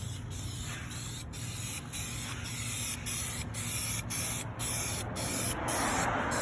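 Aerosol spray paint can spraying car wheels in short, quick passes: a steady hiss broken by brief gaps about twice a second.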